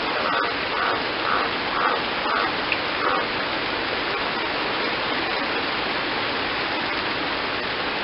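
Heavy rain falling steadily on garden foliage and water. A green tree frog (Litoria caerulea) calls a short croak about twice a second over the rain, stopping about three seconds in.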